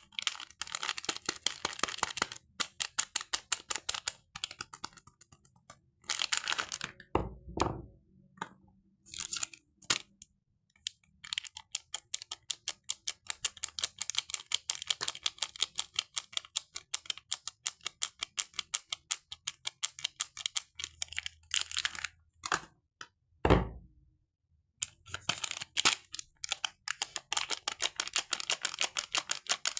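Soap packaging handled and peeled close up: runs of rapid, crisp crackling and clicking, broken by short pauses. Two dull thumps, one about a quarter of the way in and a louder one about three-quarters through.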